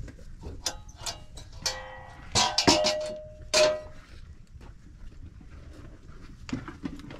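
A few light knocks, then a cluster of sharp metallic clanks with a brief ringing tone about two to four seconds in, as metal cookware is knocked together.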